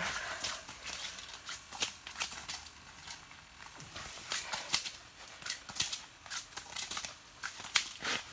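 Winter jacket and gloves rustling, with scattered light clicks and taps from handling fishing gear, coming at irregular moments with no steady rhythm.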